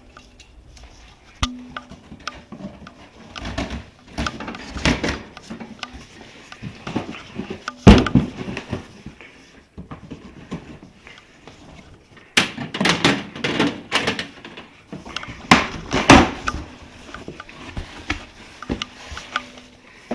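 A cardboard shipping box being opened and its packaging handled: scattered clicks and scraping, a sharp thump about eight seconds in, and bursts of rustling and tearing cardboard or packing material in the second half.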